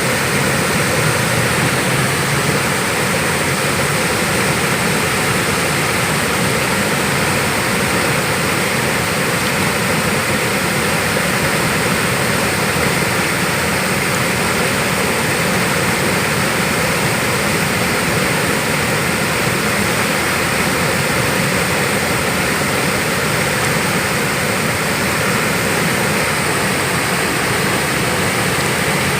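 Steady, unbroken roar of a waterfall and fast-flowing river water.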